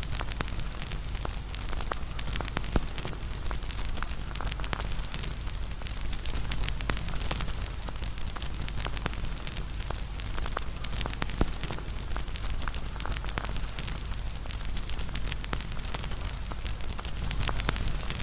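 Fire crackling steadily, with frequent small pops and snaps over a low rumble.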